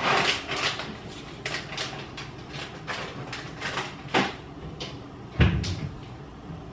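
Kitchen handling noises: a plastic bag rustling and a run of small knocks and clicks, then a louder, deep thump about five and a half seconds in as an upper cupboard door is opened.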